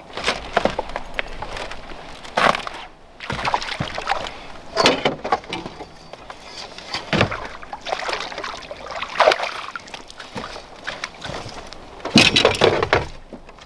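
Irregular bursts of splashing and sloshing water, with knocks against the boat, as a hooked crappie is brought to the boat and aboard; the loudest burst comes near the end.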